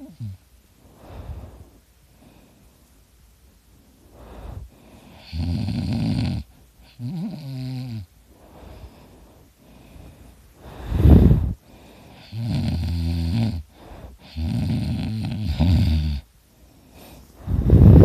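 A person snoring loudly in sleep: a run of separate snores a second or so long, some a rattling, buzzing tone and some breathy, after a pause of about three seconds near the start. The loudest snores come about eleven seconds in and near the end.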